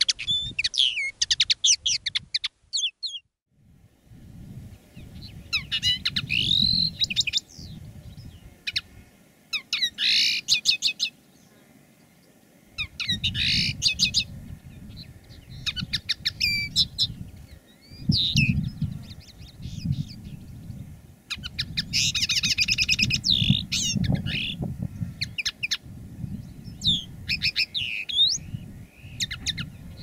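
Caged common linnets singing: fast twittering song phrases of quick rising and falling notes, in bursts a few seconds apart. The first bird's song breaks off about three seconds in, and after a short silence a second linnet sings on, with a low rumble underneath.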